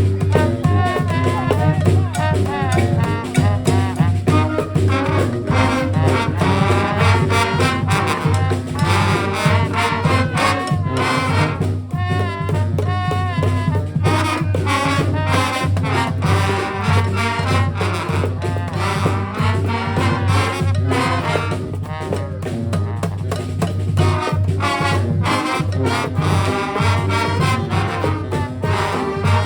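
Brass band playing live: trumpets and trombones carry a tune over drums and a low bass line.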